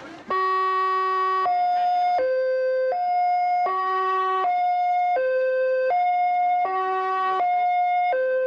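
Two-tone police van siren switching back and forth between a high and a low note, each held about three-quarters of a second; it starts abruptly just after the beginning.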